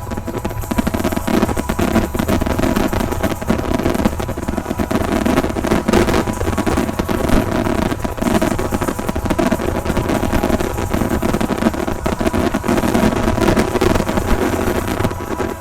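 Fireworks finale barrage: many shells bursting in rapid succession, merging into a continuous loud rumble with dense sharp cracks throughout.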